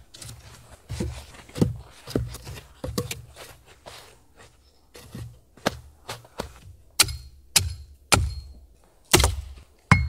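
A tool striking wood in a series of sharp thunks, each with a low thud. The blows are irregular at first, then louder and coming one or two a second over the last three seconds.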